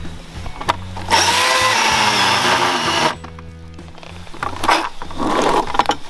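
Milwaukee M18 battery-electric chainsaw running under load for about two seconds, then cutting off suddenly as its nearly flat battery gives out.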